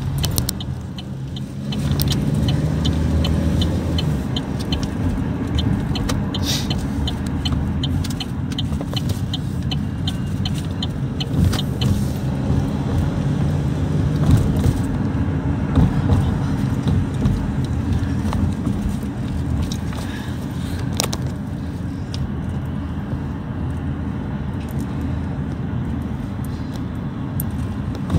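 Steady road and engine rumble heard inside a moving car. Over it comes a regular light ticking, about two or three ticks a second, which stops about halfway through.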